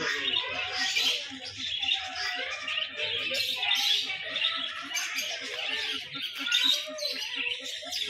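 Many caged birds chirping and chattering together in a dense chorus, with a rapid, even low pulsing underneath.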